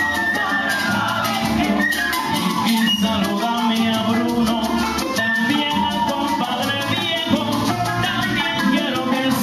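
Cuban son band playing: a bass line under steady percussion, with a melody on top.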